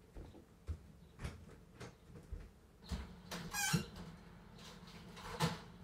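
Scattered soft knocks off camera, a brief high squeak about three and a half seconds in, and a louder knock near the end.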